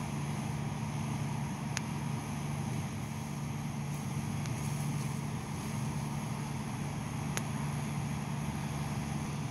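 Steady low engine drone with no change in pitch, broken by two faint sharp clicks, one about two seconds in and one near the end.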